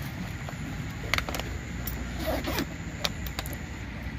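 A bag being handled by hand: a few sharp clicks and rustles over a steady low rumble.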